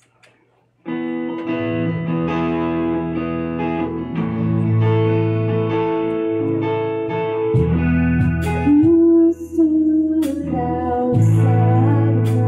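A live worship band starts up suddenly about a second in, with guitars playing sustained chords. A singing voice joins later on.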